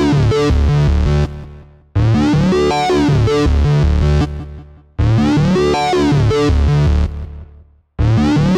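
Synthesizer intro to an 80s-style rock song: a short riff of quick notes over a bass line sounds for about a second, then fades away, and the same phrase starts again every three seconds.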